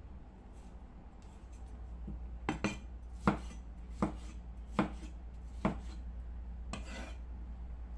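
Cleaver chopping tomatoes on a plastic cutting board: about six sharp knocks of the blade hitting the board, spread unevenly over about three seconds from a couple of seconds in, followed by a short rustle near the end.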